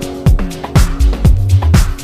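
Upbeat background music with a steady drum beat, about two beats a second, over a bass line.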